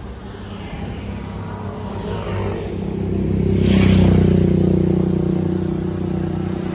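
A motor vehicle engine running steadily at idle, with a vehicle passing close on the road, loudest about four seconds in.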